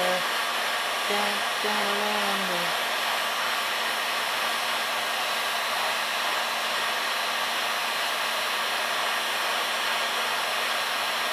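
Electric heat gun blowing a steady rush of hot air onto a brake disc bolt to soften its Loctite threadlocker. A man's voice is heard briefly about a second in.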